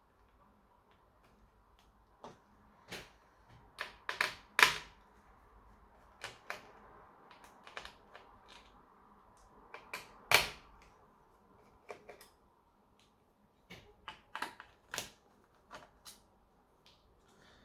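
Irregular clicks, taps and knocks of small plastic and metal laptop parts and tools being handled during an HP 15 laptop's repair, a few sharper knocks standing out.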